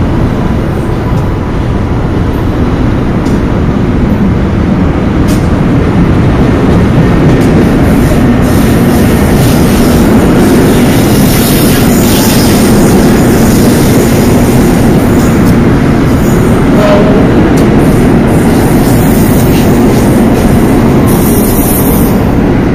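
NJ Transit commuter train of Comet coaches pulled by an ALP-46A electric locomotive rolling past as it departs. Its wheels rumble steadily on the rails, with scattered clicks.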